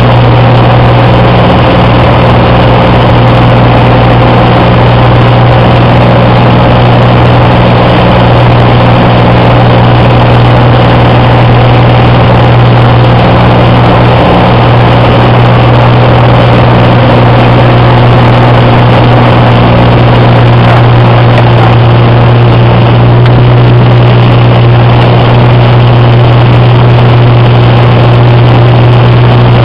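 Piston engine and propeller of a single-engine light aircraft droning loudly and steadily in flight, heard inside the cabin: one deep, even hum that holds its pitch.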